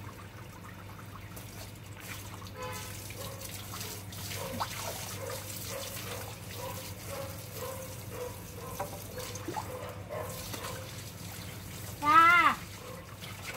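Water running and trickling from a garden hose onto a dog and the wet tiled floor during a dog bath. About twelve seconds in there is one short, loud call that rises and then falls in pitch.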